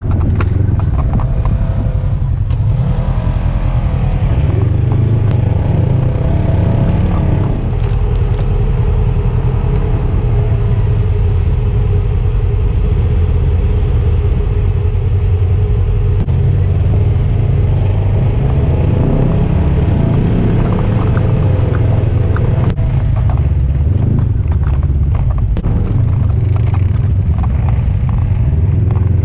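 Side-by-side UTV engine running under way through snow, its pitch rising and falling as the throttle opens and eases off. One brief sharp knock about three-quarters of the way through.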